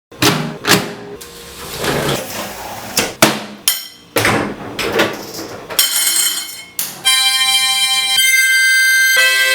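Ordinary household objects knocked, tapped and scraped one after another, a string of separate hits and short noisy rasps. About seven seconds in, a held chord of several steady tones takes over.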